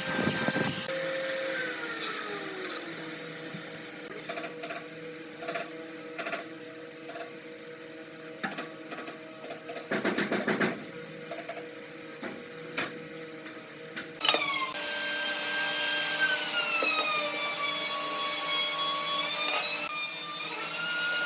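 Workshop power tools on wood: a brief burst of tool noise, then a motor hum winding down, scattered knocks and scraping with a short noisy burst midway, and a power tool's motor starting suddenly about two-thirds of the way in and whining steadily with its pitch rising and falling under load.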